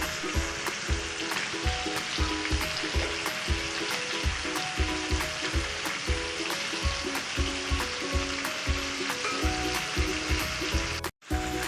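Marinated chicken pieces sizzling as they fry in oil on a low flame, under background music with a steady beat. Everything cuts out for a moment near the end.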